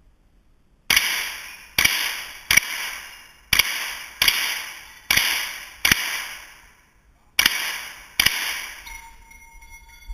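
.22 LR gunshots, nine in quick succession with a short pause before the last two. Each shot leaves an echoing tail off the walls of an indoor range.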